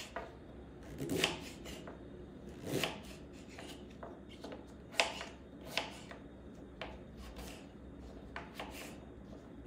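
Kitchen knife cutting through firm peeled celeriac and knocking on a wooden cutting board, in irregular strokes about one a second, the loudest about five seconds in. Between cuts, the root and cut pieces rub and shift on the board.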